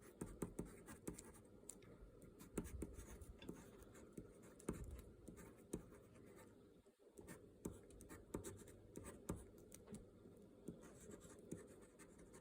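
Faint scratching of a balisong-style butterfly-knife pen writing on paper, in short irregular strokes, with a brief pause about halfway through.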